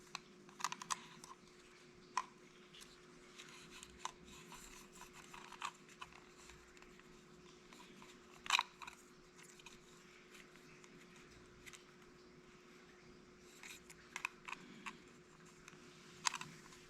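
Faint, scattered clicks and rustles of a garage door keypad's plastic housing and battery wire being handled and fitted back together, the sharpest click about halfway and a small cluster near the end, over a faint steady hum.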